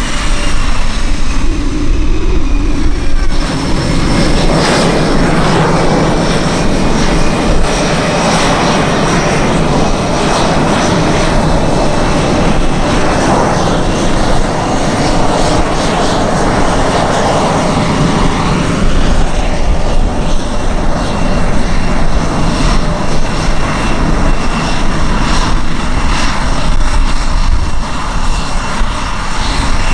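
Boeing EA-18G Growler's twin General Electric F414 turbofan engines running at taxi power, a loud jet rumble with a high whine. The engines come up in power about three seconds in and ease back somewhat after about twenty seconds.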